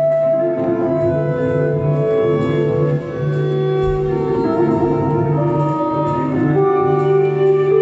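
Live band music with violin: slow, sustained bowed-violin lines over held bass notes and drums, recorded from the audience on a phone.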